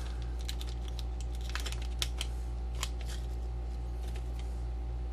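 Crinkling of a silver anti-static bag as a small circuit board is worked out of it: a scatter of irregular light crackles and clicks over a steady low electrical hum.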